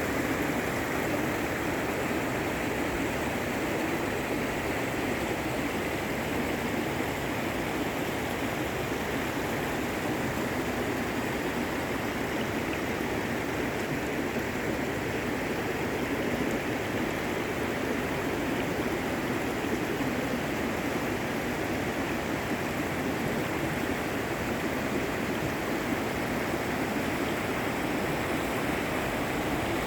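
Steady rush of fast-flowing river water, even and unbroken throughout.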